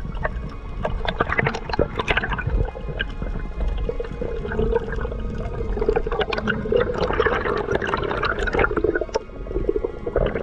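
Underwater sound through a waterproof camera housing: rushing, bubbling water as the diver swims, with scattered sharp clicks and crackles and a steady hum underneath.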